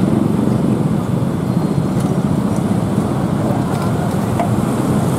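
Many motorcycle and scooter engines idling and pulling away together, a steady low traffic rumble.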